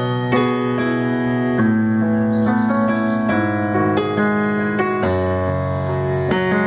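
Keyboard piano playing the slow intro of a ballad: sustained chords with single notes struck over them.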